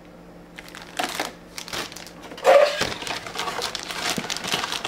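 Clear plastic bags holding plastic model-kit sprues crinkling and rustling as they are handled and set down, in irregular bursts that are loudest about two and a half seconds in.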